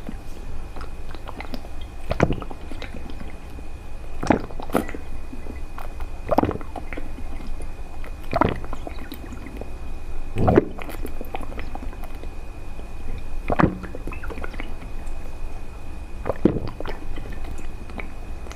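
A person eating, with separate sharp mouth sounds of biting and chewing about every two seconds, over a steady low hum and a faint high whine.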